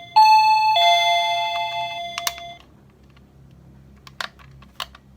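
VOYE wireless doorbell receiver chiming a two-note ding-dong, a high note then a lower one about half a second later, ringing out for about two seconds. Then a sharp click and a few fainter clicks.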